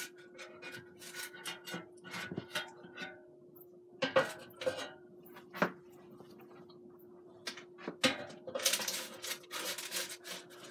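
Spatula scraping and knocking in a parchment-lined air fryer basket, working cooked salmon loose, with a dense stretch of scraping near the end. A faint steady hum runs underneath.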